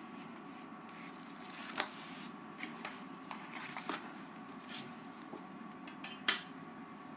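Soft rustling and light taps of a leather book cover being handled and fitted onto a book, with two sharp clicks, one about two seconds in and a louder one near the end, over a faint steady room hum.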